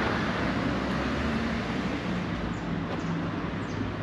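Motorcycle under way: the engine running steadily under constant wind and road noise.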